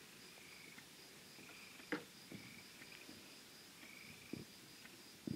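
Night insects calling: short chirps repeating about once a second over a fainter, steady, high pulsing trill. A single sharp click about two seconds in, and a soft thump or two near the end.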